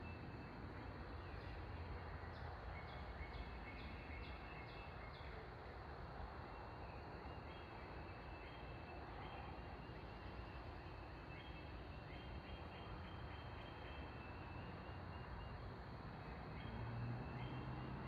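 Songbirds of the morning chorus singing faintly: a run of about seven short, falling whistled notes, then repeated short phrases from other birds later on, over a steady background hiss. A low hum swells near the end.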